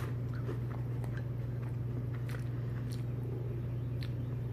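A person chewing a mouthful of crunchy Honey Bunches of Oats Chicken & Waffles cereal, with irregular short crunches. A steady low hum runs underneath.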